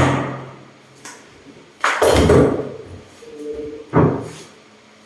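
Two sharp knocks about two seconds apart, each ringing briefly before dying away. A loud noise fades out just as they begin.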